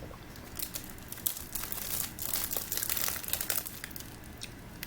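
Plastic wrapper of a packaged snack cake crinkling as it is handled and torn open, a dense run of crackles from about half a second in to nearly four seconds.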